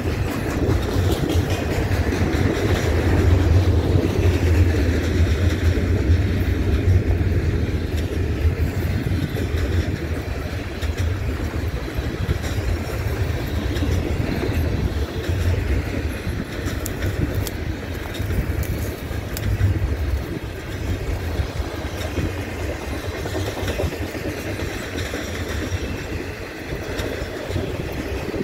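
Loaded double-stack intermodal well cars of a long freight train rolling past: a steady low rumble of steel wheels on the rails, a little louder for the first several seconds and then easing slightly.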